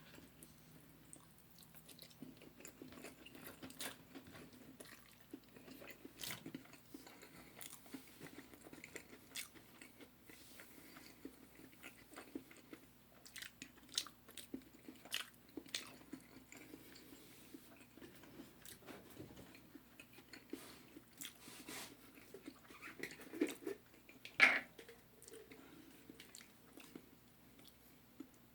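A person chewing and biting into spicy Korean fried chicken close to the microphone, with soft crunches and wet mouth clicks throughout and one louder smack late on.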